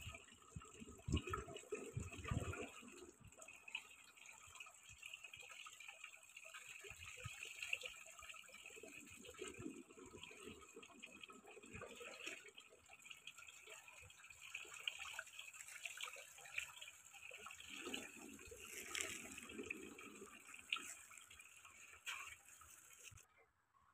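Water poured from a plastic jerrycan, splashing and trickling into a concrete water pit, with a few low thumps in the first seconds.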